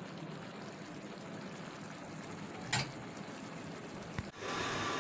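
Spiced curry sizzling and bubbling in a pan as it is cooked down, a steady hiss. A sharp click about three seconds in, a knock a little after four seconds, and a louder rush of noise just before the end.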